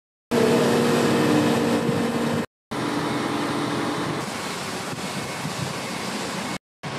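A heavy vehicle's engine runs steadily with a low hum over general outdoor noise. The sound cuts out briefly twice, about two and a half seconds in and near the end, and the hum fades after about four seconds.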